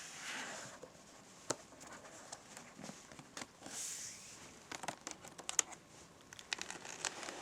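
A document folder being handled and opened, with crinkling and rustling and scattered sharp clicks and taps, more of them in the second half.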